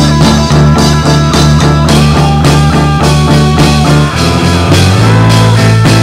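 Folk-rock band recording: electric guitar lines that bend in pitch over sustained bass notes and a steady drum beat.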